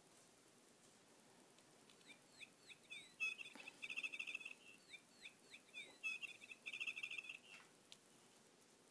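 Faint birdlike chirping: a run of short sliding chirps that leads into a fast trill, heard twice in nearly identical phrases.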